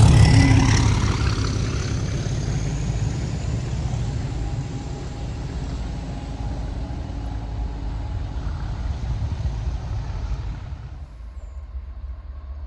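A Class 37 diesel locomotive at the tail of a railhead treatment train passes close at full volume, its engine note dropping in pitch as it goes by. The train's rumble then fades slowly as it moves away. About eleven seconds in the sound drops suddenly to a fainter rumble of a distant train.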